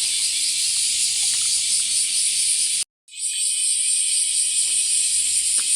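Summer cicada chorus, a dense steady high-pitched drone from many insects. It cuts out completely for a moment about three seconds in, then comes back.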